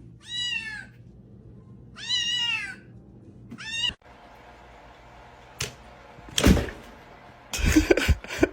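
A domestic cat meows three times, short calls that bend up and down in pitch, in the first half. After that come a couple of sharp thumps and a noisy burst near the end.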